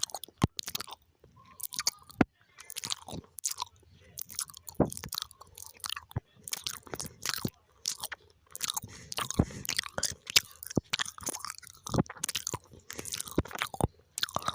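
Close-miked mouth sounds of someone chewing gum: irregular wet smacks and clicks, several a second, with short pauses between.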